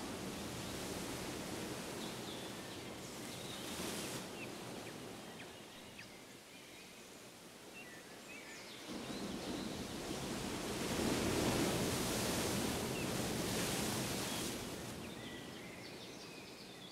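Shallow sea water lapping and splashing around a kayak over a steady outdoor rush of noise, swelling louder for several seconds past the middle.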